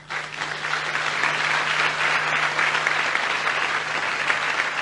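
An audience applauding: the clapping swells over the first second, then holds steady as a dense, continuous patter.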